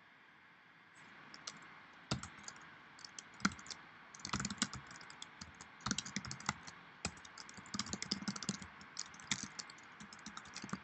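Typing on a computer keyboard: irregular keystrokes in quick runs, starting about a second in, as shell commands are entered.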